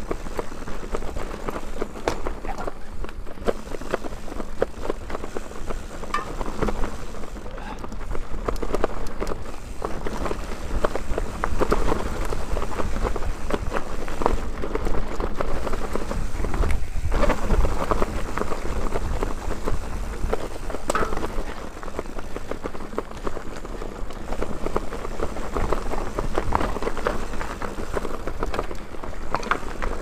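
Mountain bike ridden fast down a dirt singletrack: tyres rolling over dirt and the bike rattling and clattering over bumps, with a steady rumble of wind on the handlebar-mounted camera.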